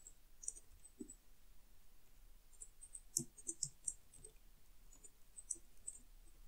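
Faint computer keyboard typing: scattered key clicks, with a quick run of keystrokes about three seconds in.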